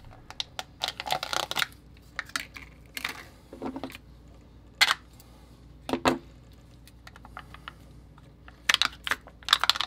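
Small clear plastic food cup handled and pried at by hand: irregular clicks, crinkles and sharper plastic snaps, louder about five and six seconds in and in a cluster near the end, as fingers work at a tight-fitting lid with no pull tab.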